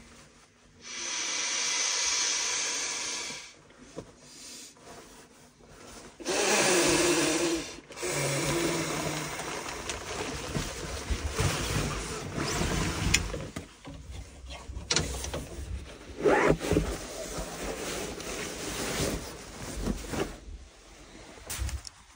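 Nylon sleeping bag and stuff sack rustling and swishing as the bedding is unpacked and spread out. There is a long swish about a second in and another around six seconds in, then steady shuffling and handling of fabric with a few light knocks.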